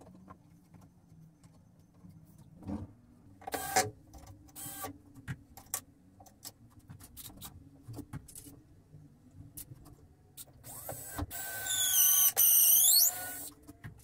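Scattered knocks and scuffs of wooden parts being handled, then, near the end, a loud high squeaking made of quick repeated falling glides lasting about two and a half seconds.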